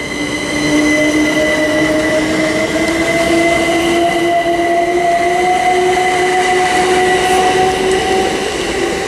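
Class 387 electric multiple unit pulling away, its traction motors giving a steady whine that rises slowly in pitch as the train picks up speed, over the rumble of wheels on the rails.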